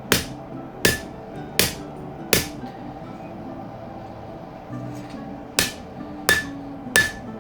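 Hand hammer striking hot leaf-spring steel on an anvil: four blows about three-quarters of a second apart, a pause of about three seconds, then three more, some with a short metallic ring.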